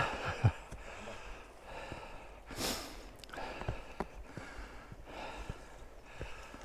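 A man breathing hard, panting with repeated heavy breaths while climbing a steep path under a heavy load, with two thumps just at the start.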